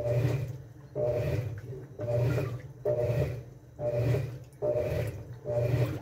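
Top-loading washing machine agitating in the wash cycle: the central agitator swishes the clothes back and forth through the water, about one stroke a second, with the motor's hum rising on each stroke.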